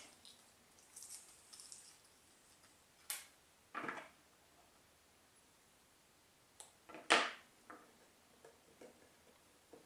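Small hand-work sounds: a few sharp clicks and short scrapes as a plastic glue paddle works in a plastic tray and walnut miter keys are pressed into the slots of a wooden box. The loudest click comes about seven seconds in.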